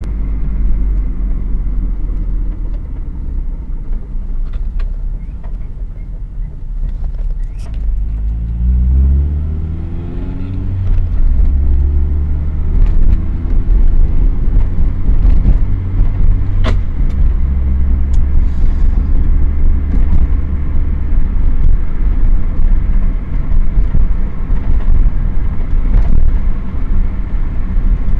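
Acura 1.6EL with a manual transmission moving, a loud low rumble with a rising pitched whine from about eight seconds in and a few light clicks. The owner takes the noise, heard when decelerating or in reverse, for a damaged transmission.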